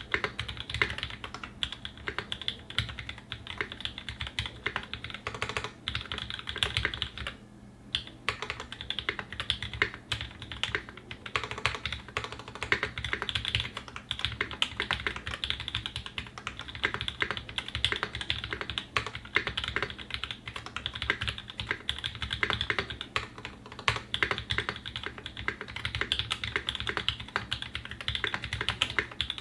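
Continuous typing on a Singa 75 custom mechanical keyboard with a polycarbonate case, brass plate, lubed Tangerine linear switches and GMK Metaverse keycaps: a steady, irregular stream of keystroke clacks, with a brief pause about seven and a half seconds in.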